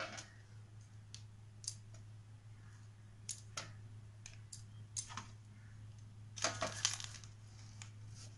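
Fruit and a coconut being handled and set down on a steel plate: scattered light clicks and knocks, with a louder cluster of knocks and scraping about six and a half seconds in. A steady low hum runs underneath.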